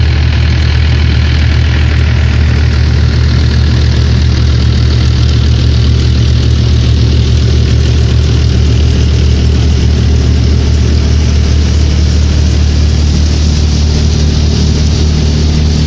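A Mahindra 575 DI tractor's diesel engine running steadily under load, driving a stationary threshing machine as barley stalks are fed into it. Loud and unbroken, a deep engine hum under the thresher's even rushing noise.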